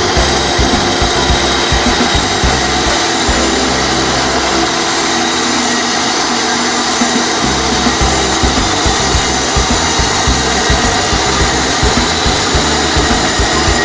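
A power tool running steadily, a continuous whir with a few fixed tones, under background music with a steady low beat.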